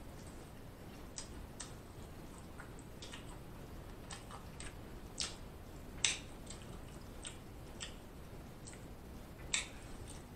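A person chewing food close to the microphone: a string of soft, irregular wet smacks and clicks from the mouth, a little louder around the middle and again near the end.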